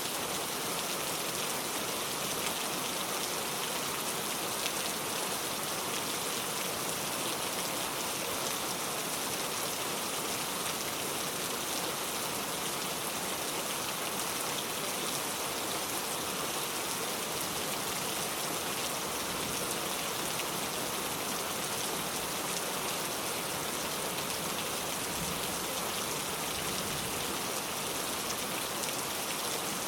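Steady heavy rain falling and pattering on surfaces, an even hiss of many drops.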